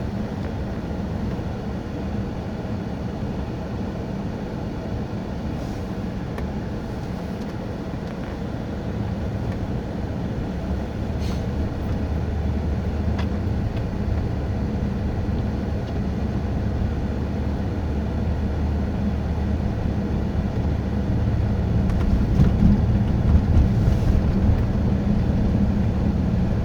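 A car's engine and tyres heard from inside the cabin while driving on a snowy, icy road: a steady low rumble and road noise that grows a little louder near the end.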